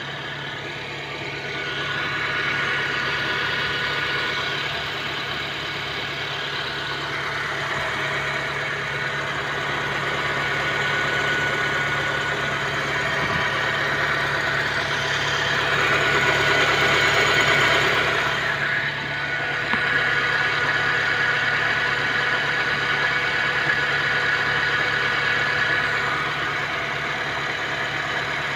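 Honda Civic engine idling with a misfire. It runs steadily and gets briefly louder a little past halfway.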